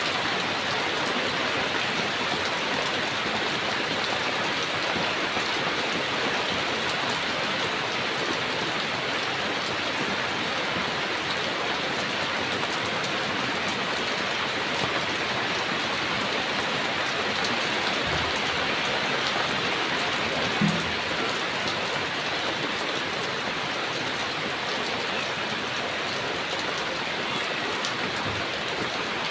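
Heavy rain falling steadily, a dense even hiss of drops on surfaces. A single brief low knock sounds about two-thirds of the way through.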